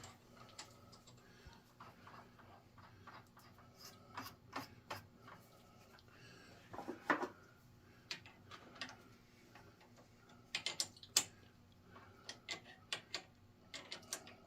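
Light, irregular metallic clicks and ticks of hand tools, a tap and tap adapter, being handled at an engine block, with a louder clatter about seven seconds in and a quick run of clicks around eleven seconds.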